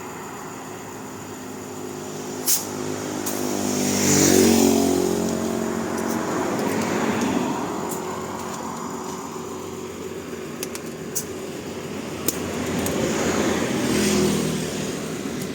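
Motor vehicles passing on a road: one swells up and fades about four seconds in, another about fourteen seconds in. A sharp metallic clank comes about two and a half seconds in, with a few lighter clicks later.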